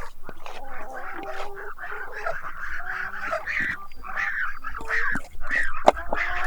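A flock of domestic waterfowl calling, many short pitched calls overlapping one another without pause. There is a single sharp knock near the end.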